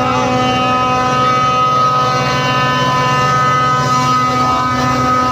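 A bus air horn held in one long, steady blast, over the bus engine running.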